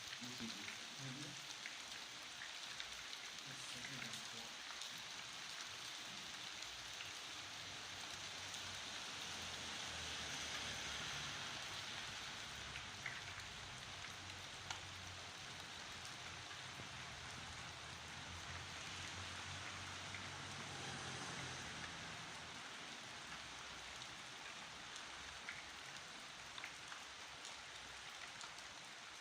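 Steady rain falling on a surface, with scattered single drops ticking through it. A faint low rumble comes and goes beneath it.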